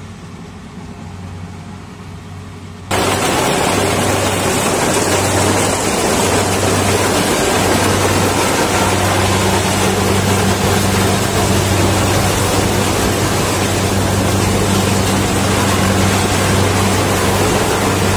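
Kubota rice combine harvester running up close as it cuts rice: a loud, dense machine noise over a steady low engine hum. For about the first three seconds it is fainter and distant, then it becomes suddenly much louder.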